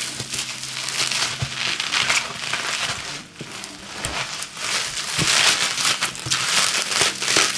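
Plastic packaging wrap crinkling and rustling as a wrapped box is pulled and unwrapped by hand, in uneven handling bursts with a few soft knocks.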